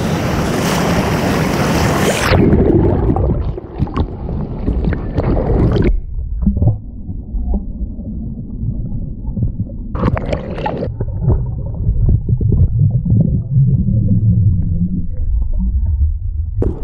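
Breaking surf washing around the camera. From about two seconds in it turns muffled and low, with gurgling and sloshing as the camera goes under the water, and a brief brighter wash of water about ten seconds in.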